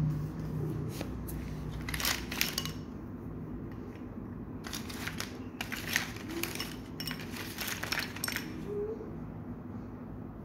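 Plastic ballpoint pens clicking and clattering against each other and the hard tile floor as they are handled and set down, in several short bursts of clicks.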